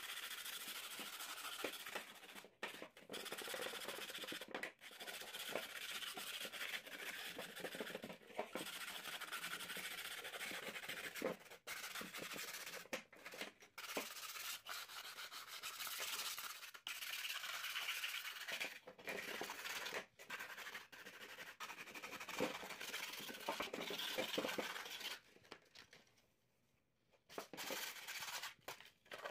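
Silicon carbide abrasive paper rubbed by hand over the rusted steel of a locking pliers: continuous scratchy sanding with brief breaks, pausing for a couple of seconds near the end.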